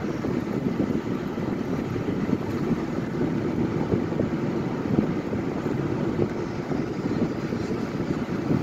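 Steady road noise from a car driving at an even speed: low tyre rumble on the pavement mixed with engine and wind noise.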